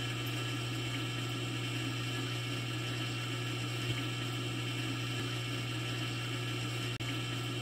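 Steady low hum with a buzzy edge from an electrospray aeroponics rig running, its needle spraying a fine jet of water through the electric-fence wire loop. The hum drops out briefly about seven seconds in.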